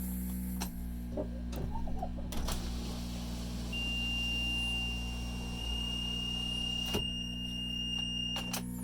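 Steady low hum of a Viair 2-gallon 12-volt air compressor running while it fills its tank for an air horn, heard from inside the motorhome cab. A few clicks, and around the middle a rise of whirring as the power window goes down, with a thin steady high tone from about four seconds in until near the end.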